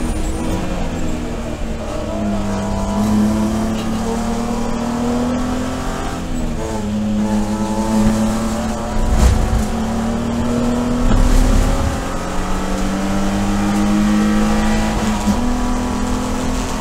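Inside the cabin of an E46 BMW 330i-based race car, its straight-six engine running hard. The revs drop in steps as the driver brakes and downshifts, then climb again through the gears as the car accelerates out of the turn.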